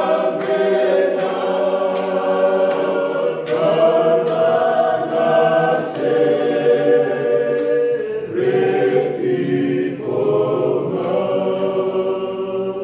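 Men's choir singing a Fijian hymn a cappella in several-part harmony, in long held phrases with short breaks between them.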